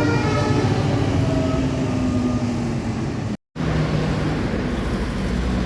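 Bus telolet air horn playing a multi-tone melody that dies away in the first second or two, one last note sliding slightly down, over the rumble of the bus engine. About three and a half seconds in the sound cuts out abruptly for a moment, then engine noise goes on with a brief low horn tone.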